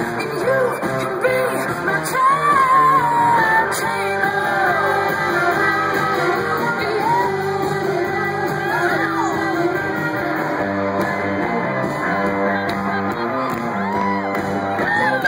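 Live rock band playing: a woman singing over electric guitars and drums.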